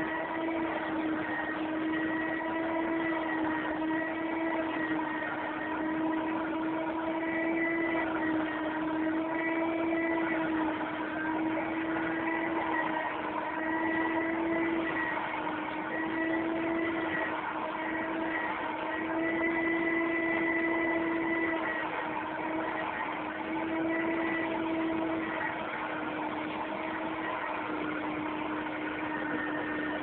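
Vacuum cleaner running steadily, a constant motor hum whose pitch and loudness waver a little.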